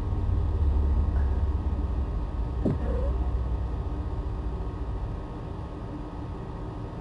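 A low rumble that fades over the last few seconds, with a short faint squeak about three seconds in.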